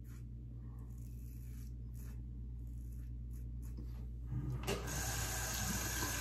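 Double-edge safety razor with a Gillette Nacet blade scraping through lathered stubble in short strokes. About four seconds in, a tap starts running steadily as the razor is rinsed.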